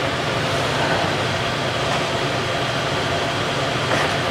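Steady droning background noise with a faint low hum and no distinct knocks or clicks, like a fan or air conditioner running in the garage.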